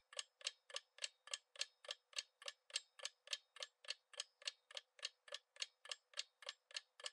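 Quiz countdown timer sound effect: a faint clock ticking evenly, about three and a half ticks a second.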